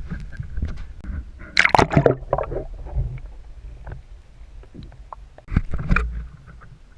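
Water sloshing and splashing against a kayak, with clusters of sharp splashes and knocks about one and a half seconds in and again near five and a half seconds, over a low steady rumble.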